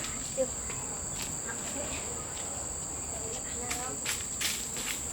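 Steady high-pitched drone of insects in the surrounding vegetation, with a few brief rustles and faint voices over it.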